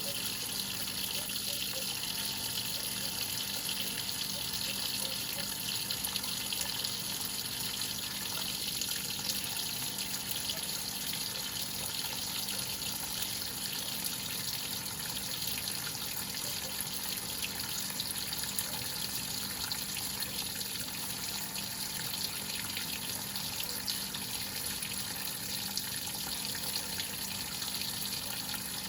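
Water running steadily into the tub of a Whirlpool top-load washing machine as it fills, an even rush with no breaks.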